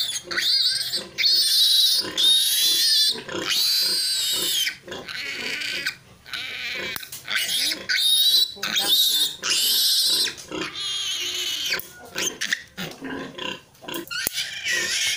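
Newborn piglet squealing loudly in a run of long, high-pitched, wavering screams, each about a second, with short breaks between them. It is squealing while held to have its needle teeth clipped.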